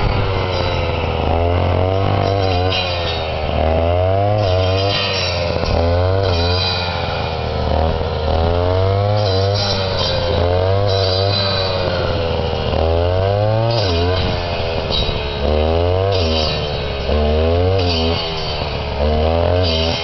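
Portable mulberry pruner's small petrol engine running hard, revving up and down every second or two as the cutter bites through the mulberry stems.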